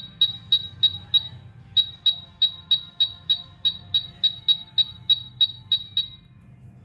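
UNI-T UT387E wall scanner beeping, about three short high beeps a second, its alarm that it has detected metal behind the wall. The beeping breaks off briefly about a second in and stops about six seconds in.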